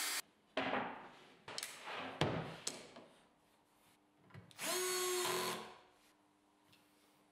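A cordless drill-driver spins for about a second near the middle, drilling or driving a screw into a countersunk hole in an HPL-laminated plywood panel; its whine rises briefly as it gets up to speed. Before that, a power-saw cut stops right at the start, followed by a few knocks and clatters of tools and workpieces being handled on the bench.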